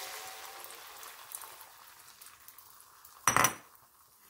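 Omelette batter sizzling in hot oil in a frying pan, the sizzle fading over the first couple of seconds. About three seconds in there is a short, loud clatter with a ringing clink.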